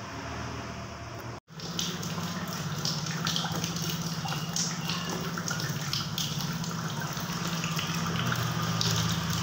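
Old Yamaha motorcycle engine idling steadily. It breaks off briefly about a second and a half in, then runs on louder.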